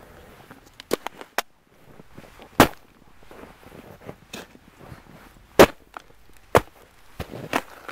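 Winter boot stamping on empty metal cans to crush them flat: sharp crunching impacts, three loud ones a few seconds apart with smaller clicks and taps between.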